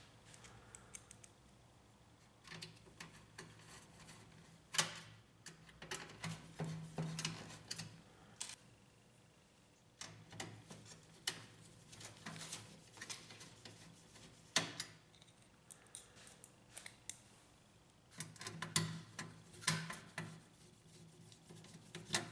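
Scattered light clicks and knocks of metal and plastic laser-printer parts being handled while the metal plate's screws are driven in, with a low hum coming and going in short stretches.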